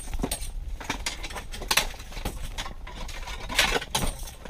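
Irregular clicks, light clinks and rustling from an angler handling rod, reel and line at an ice-fishing hole while fighting a fish. There are two louder rustles, one about halfway through and one near the end.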